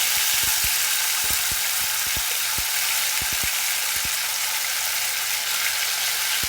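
Ghee sizzling steadily in a pan just after wet mint-coriander chutney has gone into the fried cumin and coriander seeds. Soft low knocks come and go during the first few seconds, then stop.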